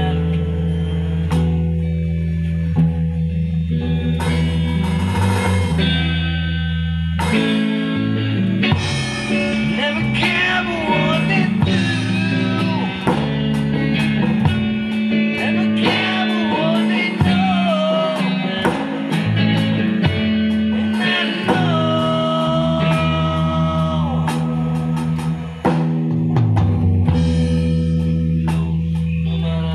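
Electric guitar playing a lead line with bent and long held notes over steady bass notes and an electronic drum kit, a live band jam.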